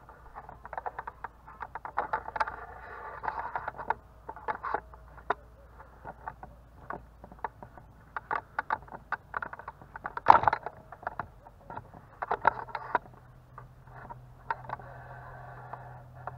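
Irregular clicks and rattles from fishing tackle being handled while a hooked carp is played, with a louder knock about ten seconds in. A low steady hum comes in about twelve seconds in.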